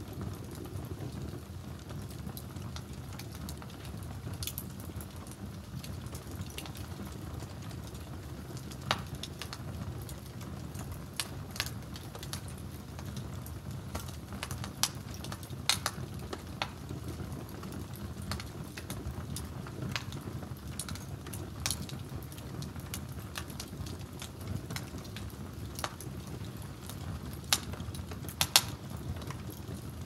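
Wood fire burning under a cooking pot: a steady low rush of flames with scattered sharp crackles and pops, the loudest pops close together near the end.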